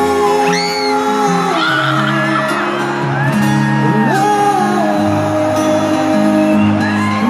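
Live concert music with singing over sustained chords and bass, and the crowd whooping and shouting.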